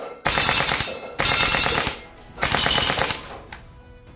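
WE AK74 gas blowback airsoft rifle firing on full auto: the end of one burst, then three short bursts of rapid shots, each under a second long, with a short gap between them.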